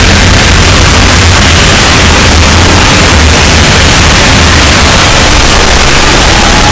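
Deliberately overdriven, clipped audio at near full-scale loudness: a constant harsh wall of noise with a heavy low rumble, the original sound buried beyond recognition.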